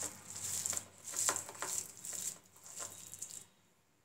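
Hand squeezing and mashing boiled sweet potato in a stainless steel bowl: a run of irregular squishing, rubbing strokes that stops about three and a half seconds in.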